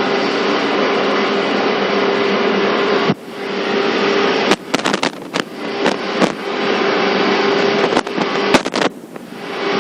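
Cabin noise inside a 485-series electric train car: a steady hum with one held tone. About three seconds in it drops sharply, and a run of sharp knocks and clicks follows before the full hum returns near the end.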